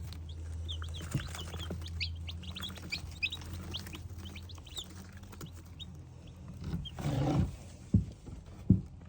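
Baby chicks peeping in a brooder: many short, high cheeps overlapping, over a steady low hum. A rustle about seven seconds in and two thumps near the end.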